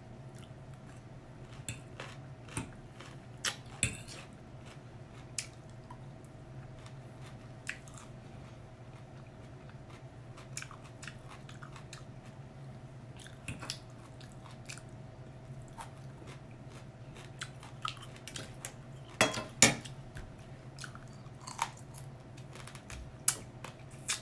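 A person eating and chewing noodles and lobster with lip smacks and scattered short sharp clicks, the loudest few about three-quarters of the way through, over a low steady hum.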